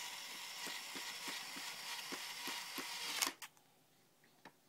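Toy power drill's small electric motor whirring as it drives a plastic bolt into a pegboard, with a regular clicking about three times a second. It stops suddenly with a click about three seconds in.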